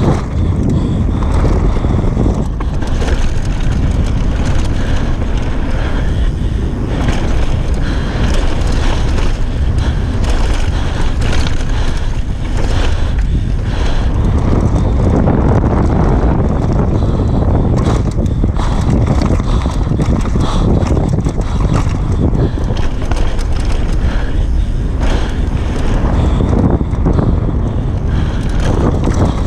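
Downhill mountain bike ridden fast down a dirt trail: wind buffeting the camera microphone over the tyres rolling across dirt and stones and the bike rattling over the bumps, as one steady loud noise.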